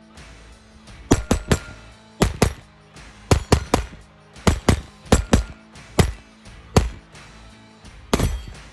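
Sharp shots from a .22 rimfire pistol fired in quick pairs and triples, about sixteen in all, over background music.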